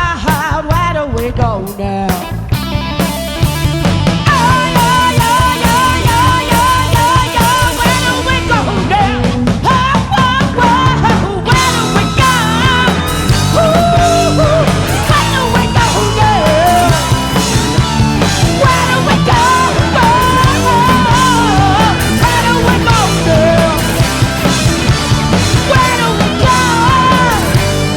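Live rock cover band playing: drum kit, bass and guitars, with a melodic lead line over the top.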